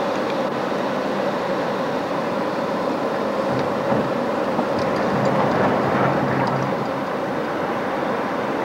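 Steady engine and road noise of a car driving slowly, heard inside the cabin, with a few faint ticks in the middle.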